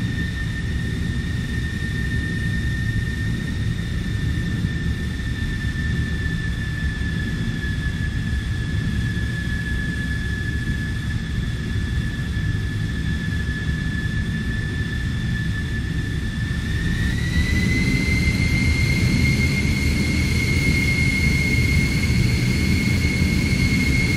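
Airliner jet engines heard from inside the cabin: a steady low rumble with a high whine over it. About 17 seconds in, the whine steps up in pitch and gets louder, then starts to drop near the end.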